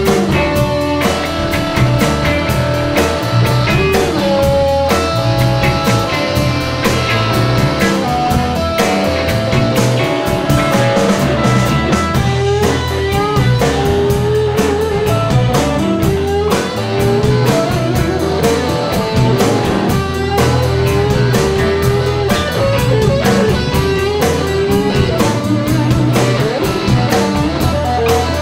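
Live blues-rock band playing an instrumental section: electric guitars over bass guitar and drum kit, with a lead guitar line of bent, wavering notes taking over about halfway through.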